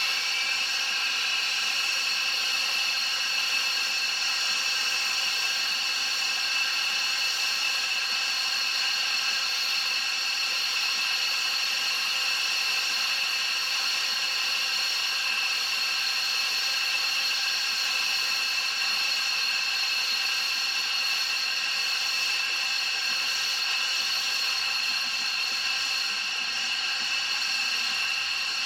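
Jet engines of Thunderbird F-16 fighters whining steadily at idle after start-up. The pitch finishes rising and settles in the first second.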